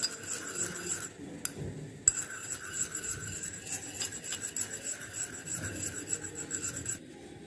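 Glass stirring rod scraping and rubbing quickly around a porcelain dish, with a couple of sharper taps about a second and a half and two seconds in, stopping shortly before the end. This is the borax–rose water phase being mixed into melted beeswax and mineral oil.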